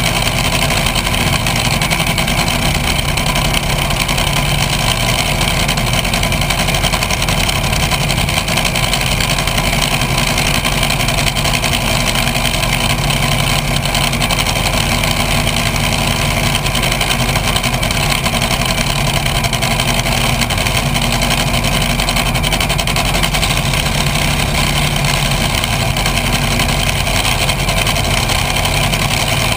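Top fuel dragster's supercharged nitromethane V8 idling steadily and loudly, close to the onboard microphone.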